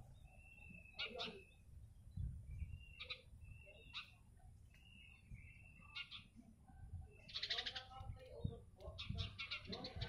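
Small wild birds calling: short, thin chirps repeated about once a second, with sharp clicking notes between them, then a louder, quicker run of calls near the end.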